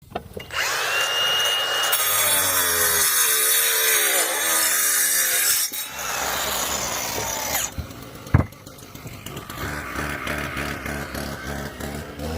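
Power saw cutting through wood, its pitch wavering and dipping as the blade takes the load, then stopping, followed by a single sharp knock and quieter tool noise.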